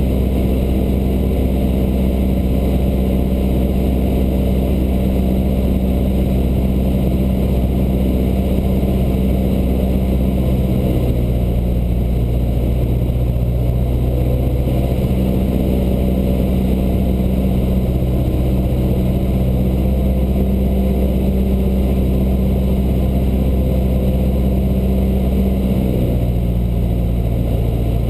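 Cessna 152's four-cylinder Lycoming O-235 engine and propeller droning steadily in flight, heard inside the cabin. The engine note drops about eleven seconds in, comes back up a few seconds later, and drops again near the end as the power is changed.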